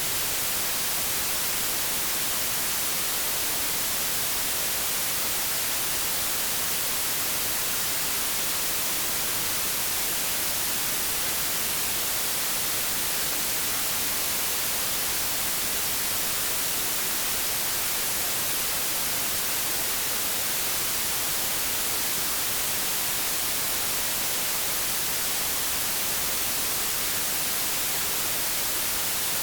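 Steady white-noise static, like an untuned television or radio, an even hiss at constant level with no changes.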